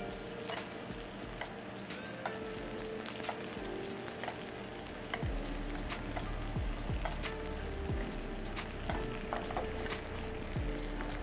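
Corvina fillet frying in foaming, browning butter with thyme in a pan, sizzling steadily while it is basted with a spoon, with many small clicks and clinks.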